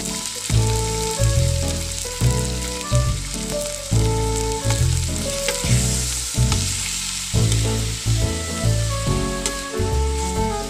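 Chicken pieces frying and sizzling in an aluminium pot as they are stirred with a metal spoon, under background music with a steady beat and held notes.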